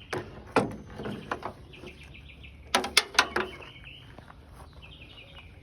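A few sharp clicks and knocks, the loudest cluster about three seconds in, with a bird chirping in quick trilled runs in the background.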